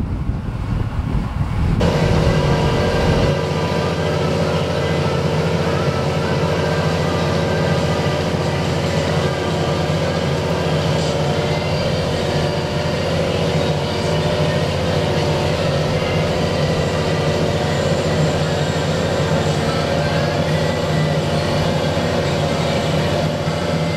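Fendt 930 tractor's six-cylinder diesel engine running steadily under load, heard close from on board while it pulls a Kverneland plough through heavy clay stubble. The first two seconds are wind noise before the engine drone comes in.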